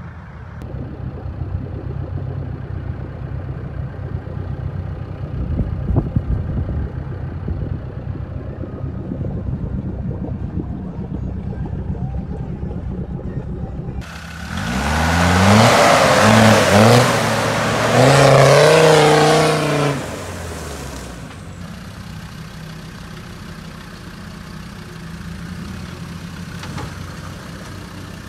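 Land Rover turbo-diesel engine labouring off-road: a steady low drone for the first half, then about six seconds of hard revving that rises and falls, before it settles back to a quieter low-revving crawl.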